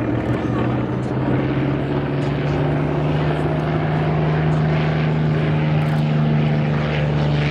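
Propeller aircraft engine drone, steady and loud, its pitch moving up a little about a second in and then holding.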